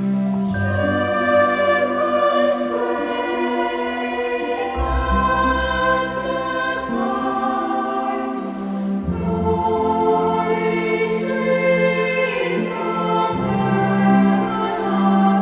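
Choral music: voices holding long, slow chords, the chord changing about every four seconds.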